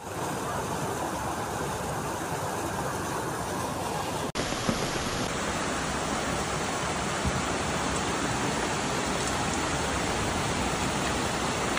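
Steady rushing noise of floodwater running through a street, with rain, cutting out for an instant about four seconds in.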